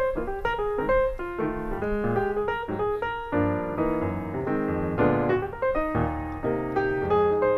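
Background piano music: a lively run of notes, turning into fuller chords with more bass from about three seconds in.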